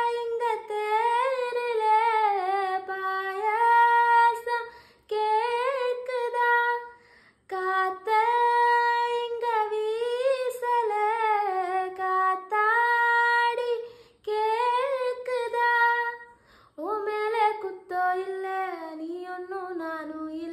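A woman singing a Tamil song solo and unaccompanied, in held, gliding phrases with short breaks between them.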